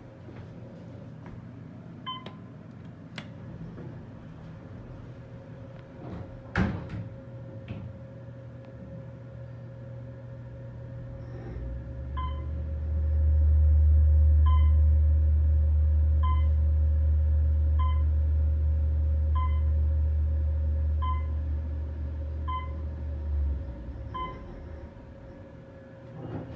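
Otis Series 1 traction elevator's hoist motor starting up with a deep hum about twelve seconds in, running steadily for about ten seconds as the car travels, then stopping. A single knock comes about six seconds in, and short beeps sound about once a second while the car moves.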